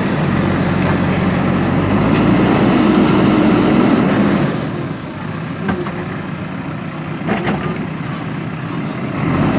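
JCB backhoe loader's diesel engine running, louder for the first four seconds or so and then settling to a lower level. A couple of short knocks come through about six and seven and a half seconds in.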